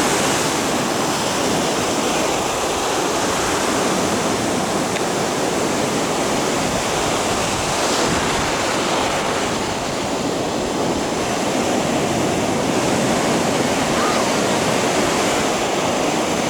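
Ocean surf breaking on a beach: a continuous, steady rush of waves.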